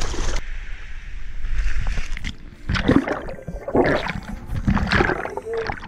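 Seawater splashing and sloshing against an action camera held at the waterline while a German shepherd paddles right up to it. The microphone dips in and out of the water, giving irregular gurgling bursts through the second half.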